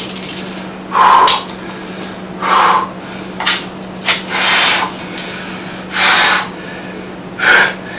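A man's hard, pained breathing after a BB shot to the foot: about seven sharp, noisy breaths through the mouth, spaced a second or so apart.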